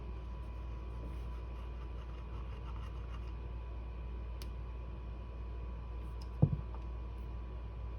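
Quiet rubbing and scratching of hands and tools working on disassembled shotgun parts over a steady low hum, with one dull knock about six and a half seconds in.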